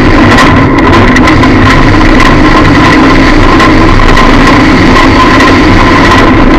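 Lada derby car's engine running, heard from inside the stripped cabin, recorded so loud that it is distorted. A steady high whine runs through it, with scattered rattles.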